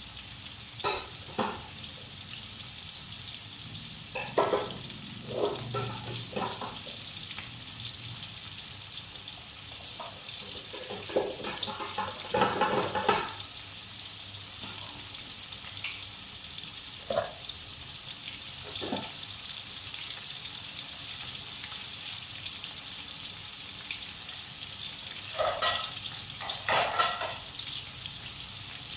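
Chicken wings frying in hot oil in a wok with garlic and shallots, giving a steady sizzle. A spatula knocks and scrapes against the wok now and then, in short clusters.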